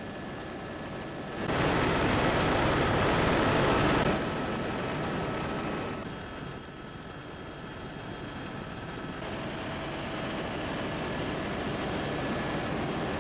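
Steady engine and rotor noise inside a tour helicopter's cabin in flight. The rush of noise turns clearly louder for a couple of seconds near the start, then drops and slowly builds again.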